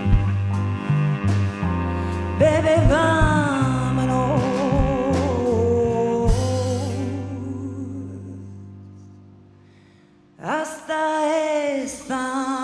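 Live band song sung in Italian: a voice sings a phrase with vibrato over bass, drums and guitar. The backing fades away to almost nothing around ten seconds in, then the voice comes back with a new phrase.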